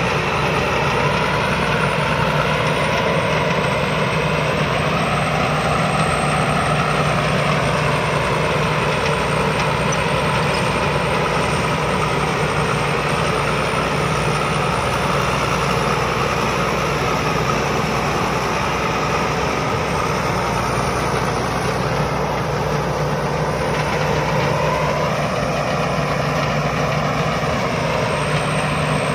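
Rice combine harvester running steadily, its engine note rising and falling gently a few times.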